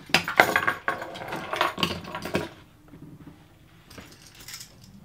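Bundles of spliced rope with metal shackles and pulleys being handled and set down on a wooden table: rope rustling and metal fittings clinking, busiest in the first two and a half seconds, with a few more clinks near the end.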